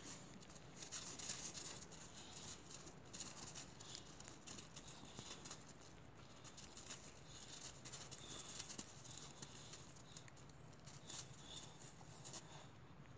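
Faint crunching and scuffling of two boxer dogs' paws on snow as they tussle over a toy, heard as many small irregular crackles.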